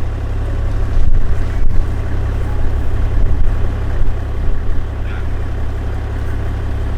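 2005 Toyota Troop Carrier 4WD running, a steady deep engine and road drone heard from inside the cabin.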